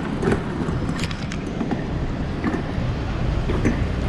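City street traffic noise: a steady low rumble of passing vehicles with a few short clicks.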